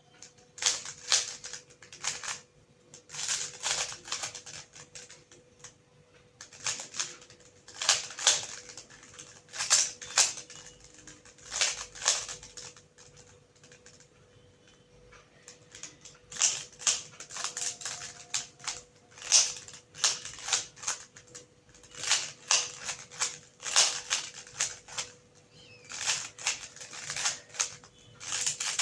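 A 3x3 Rubik's cube being turned by hand: quick runs of plastic clicks and clacks as the layers rotate, in bursts with short pauses between them.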